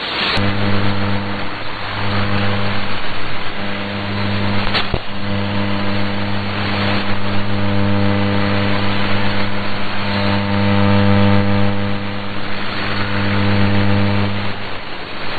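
Shortwave AM broadcast signal received with no programme audio: a steady low buzzing hum over receiver hiss. The hum drops out briefly several times, and two short static clicks come about half a second and five seconds in.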